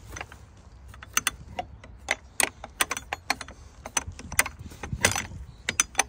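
A metal latch on a wooden field gate clicking and clanking repeatedly as a hand works it: a rapid, irregular run of sharp metallic clacks.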